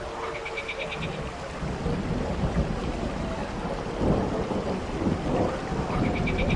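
Heavy rain falling with a deep rolling thunder rumble that swells and grows louder. A short high chirping trill sounds twice, near the start and near the end.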